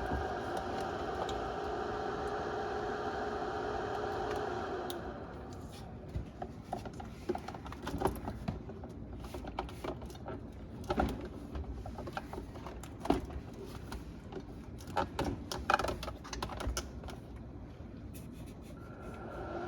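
A small electric motor hums steadily, then stops about five seconds in. Irregular clicks and knocks of parts being handled follow, and the hum starts again near the end.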